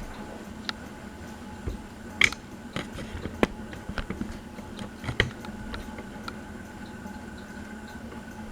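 Harbor Breeze Palm Breeze ceiling fan running with a steady hum, with irregular clicks and knocks, the loudest about two and three and a half seconds in.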